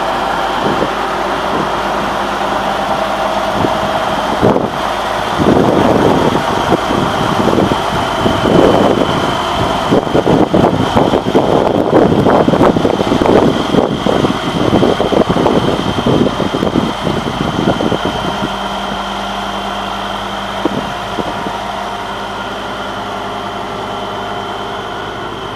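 Case IH 9270 four-wheel-drive tractor's six-cylinder Cummins diesel running at a steady idle. A louder, rougher stretch in the middle lasts about twelve seconds.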